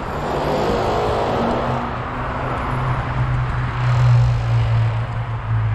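Kick scooter rolling over sidewalk paving tiles, its wheels giving a steady rushing rumble, with city traffic running alongside. A low engine hum swells about four seconds in.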